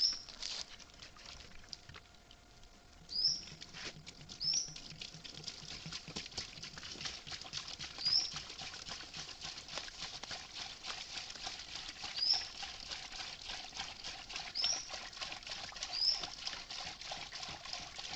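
Outdoor nature ambience: a bird repeats a short, high call every few seconds over a steady crackling patter.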